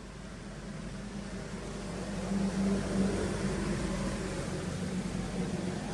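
A low, steady motor hum that grows louder and peaks about two to three seconds in, then stays fairly loud.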